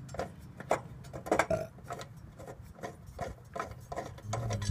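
A run of light, uneven clicks and knocks, roughly two a second, over a faint low hum that grows a little louder near the end.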